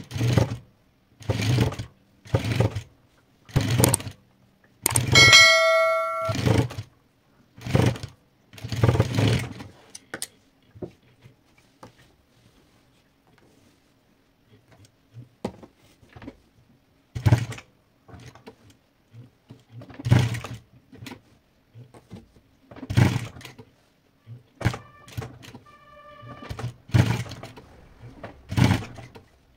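Industrial lockstitch sewing machine running in short bursts of under a second, stitching through pleated fabric, with a pause of a few seconds near the middle. A ringing tone sounds during the longest run, about five seconds in, and again briefly near the end.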